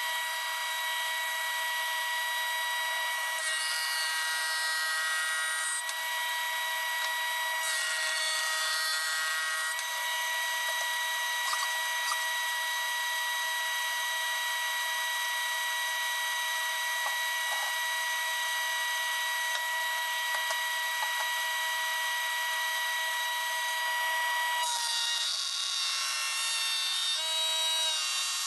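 Electric jointer running with a steady high whine. Its sound changes a few times (a few seconds in, about eight seconds in, and near the end) as hardwood boards are fed across the cutterhead.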